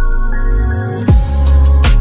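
Background electronic music: sustained synth chords over heavy bass, with a rising sweep into a deep drum hit about a second in and another drum hit near the end.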